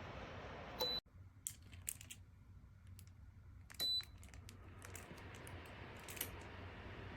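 Two short high electronic beeps about three seconds apart from a space heater's controls, with light plastic clicks and handling between them.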